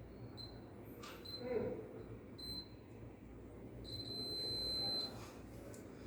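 A high electronic beep sounds in short pulses at irregular intervals, then holds as one longer beep for about a second about four seconds in. A steady low electrical hum runs underneath.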